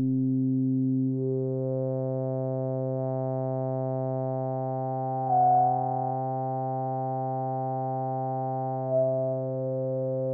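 Behringer 2600 Blue Marvin synthesizer holding one low sawtooth note from VCO3 through its resonant filter. As the cutoff is moved by hand, the resonant peak picks out one harmonic after another, with two brief louder swells about halfway and near the end.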